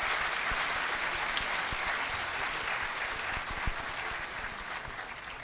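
A large auditorium audience applauding in a steady wash of clapping, which tapers off near the end.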